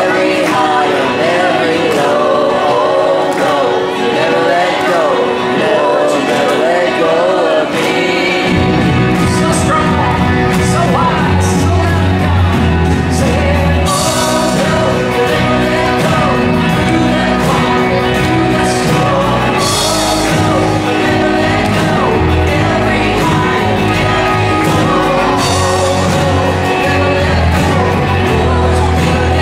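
Gospel praise music with singing; a bass line and drums come in about eight seconds in, with cymbal crashes.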